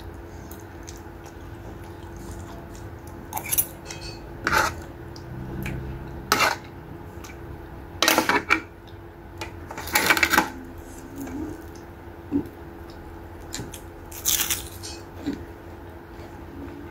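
Close-up eating sounds: a spoonful of sour-cooked taro stems being chewed, with a handful of short, sharp clinks and scrapes of a metal spoon against dishes every second or two.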